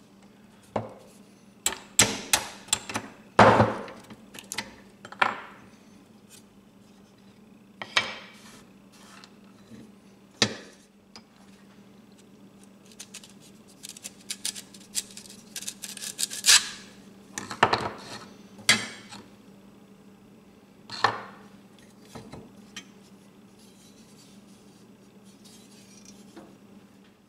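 Hammer tapping a steel pin punch to drive the old pins out of the corn knife's cracked wooden handle. The sharp metal-on-metal strikes come singly and in short clusters, with pauses between them.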